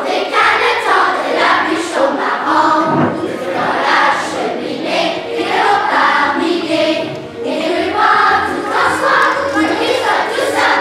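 A children's choir singing together in sustained phrases.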